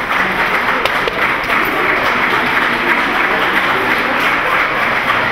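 Crowd applauding: a dense, steady wash of many hands clapping.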